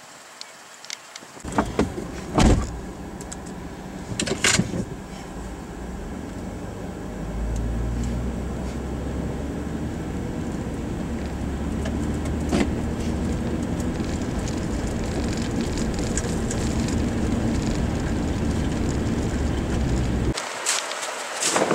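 Road noise inside a moving vehicle: a steady low rumble of tyres and engine on a road covered in hail slush and meltwater. It is broken by a few sharp knocks in the first few seconds and grows louder and deeper about seven seconds in.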